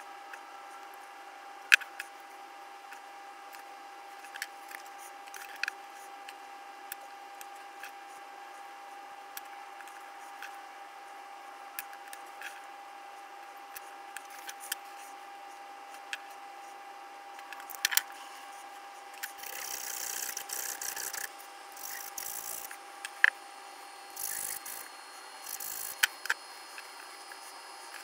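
Scattered small clicks and taps of tiny 1:64-scale model car parts, metal wheels and a plastic chassis, being handled and set down on a desk mat. From about two-thirds of the way through come several short bursts of scratchy rubbing, and a faint steady whine runs underneath.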